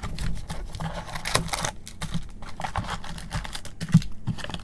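Cardboard trading-card hobby box being handled and opened with gloved hands: a string of light taps and clicks, with a sharper knock about a second and a half in and another near the end.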